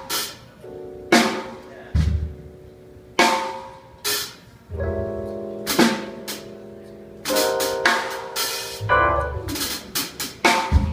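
Jazz band playing live: loud drum-kit and cymbal accents land about every second or so, with held piano chords and upright bass ringing between them.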